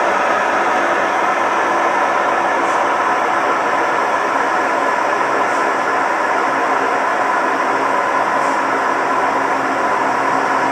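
Whirlpool 15 kg washing machine in its spin cycle, running with a loud, steady mechanical drone and a faint high tick about every three seconds; the owner puts the noise down to its bearings.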